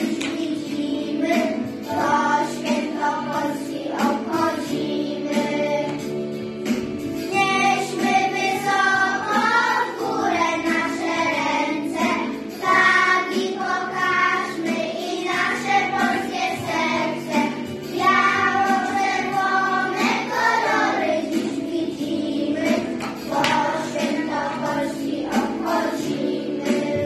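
A group of young children singing a song together in unison, with a steady instrumental accompaniment underneath.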